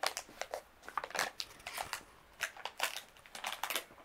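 Crinkly blind-bag wrapper rustling and crackling in a child's hands as she works at opening it, in short irregular crackles.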